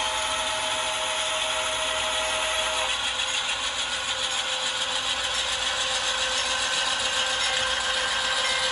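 Pair of HO scale CSX AC4400CW model diesel locomotives running along the track: a steady mechanical whir and clatter from their motors, gears and wheels on the rails.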